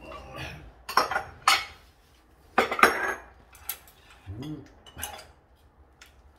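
Bowls, plates and spoons clinking and knocking on a wooden table as tableware is handled and moved, a series of sharp clinks with the loudest about a second in and again near three seconds.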